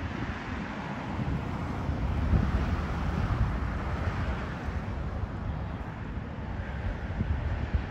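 Wind buffeting the microphone: an uneven low rumble over a steady rush of air.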